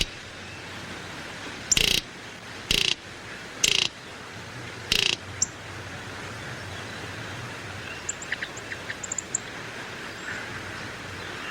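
Birds calling over a steady outdoor hiss: four loud, short calls about a second apart in the first half, then a cluster of faint, quick high chirps about eight seconds in.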